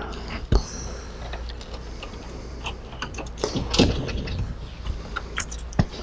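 Scattered light clicks and rustles of a keyboard panel and its cables being handled, with a sharp click about half a second in and another near the end, over a steady low hum.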